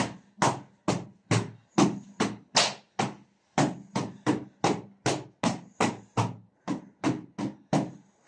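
Sharp knocks at a steady pace, about two to three a second, each ringing out briefly, with one short gap about three seconds in.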